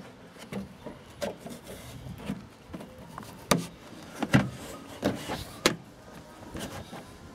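Plastic push clips of a Mitsubishi Lancer's felt trunk-lid liner clicking into place as the liner is pressed on by hand: a series of sharp clicks and knocks, the loudest from about three and a half to five and a half seconds in.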